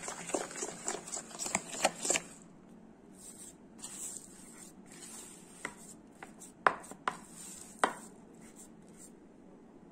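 Wire whisk clicking and scraping quickly against a plastic bowl as flour is stirred into a butter-and-egg mixture, stopping about two seconds in. Then quieter sounds of soft cookie dough being kneaded by hand, with a few sharp clicks against the bowl.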